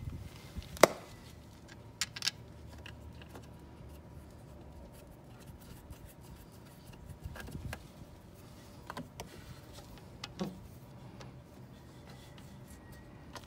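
Scattered light clicks and knocks of hands handling a rubber hose and plastic filter housing on an outboard engine, the sharpest about a second in, over a faint steady low hum.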